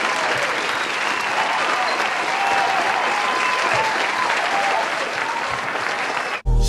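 A crowd clapping and cheering, with high whoops riding over dense steady applause. It cuts off abruptly near the end, and a hip hop beat with deep bass starts.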